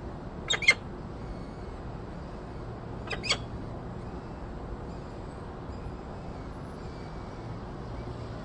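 Peregrine falcon giving two short calls about two and a half seconds apart, each a quick pair of notes, over a steady background hum.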